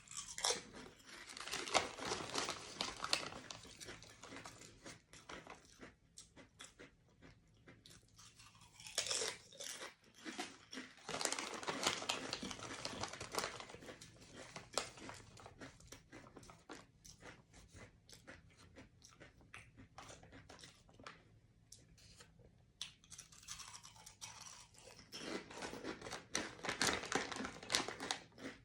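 Potato chips being crunched and chewed, with a crinkly plastic snack bag and card packets rustled and torn, in three spells of dense crackling.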